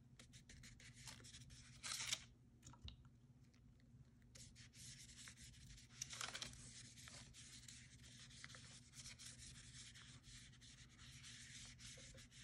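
Foam brush rubbing and dabbing coffee over wet paper: faint soft brushing strokes, with louder swipes about two seconds and six seconds in.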